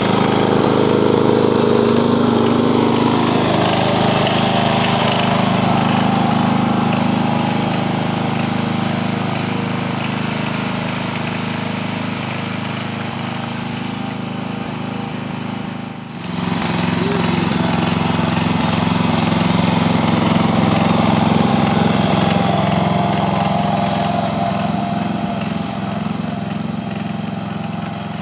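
Riding lawn mower's engine running steadily, growing louder and fainter as the mower drives nearer and farther, with an abrupt break about sixteen seconds in.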